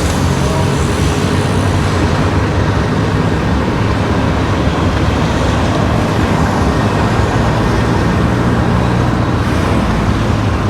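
A car driving along a road: steady engine hum with tyre and road noise.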